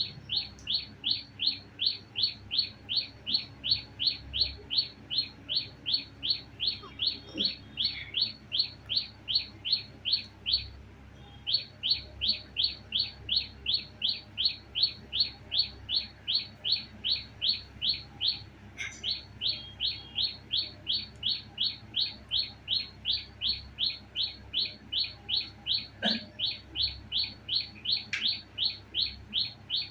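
A bird chirping over and over in a fast, even rhythm, about three short high chirps a second, with a brief pause about eleven seconds in.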